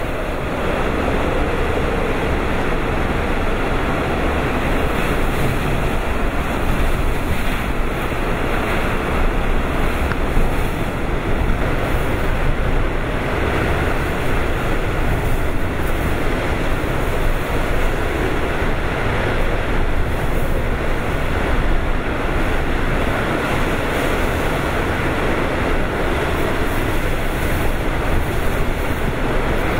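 Typhoon eyewall wind and driving rain: a loud, steady rush that swells slightly in gusts, with the wind buffeting the microphone.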